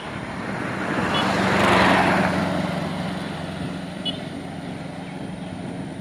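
A motor vehicle passing by on a wet road: engine hum and tyre hiss swell to a peak about two seconds in, then slowly fade.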